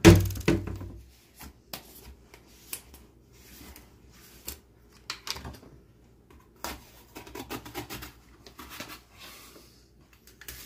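A loud thump at the start, then scattered clicks, scrapes and rubbing as a mayonnaise jar's screw lid is twisted off and the jar and utensils are handled on a kitchen counter.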